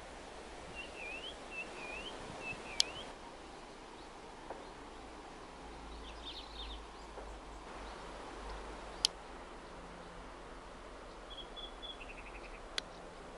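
Songbirds singing outdoors: a short whistled phrase repeated several times in the first few seconds, scattered chirps in the middle and a brief trill with falling notes near the end, over a steady background hiss. Three sharp clicks cut through.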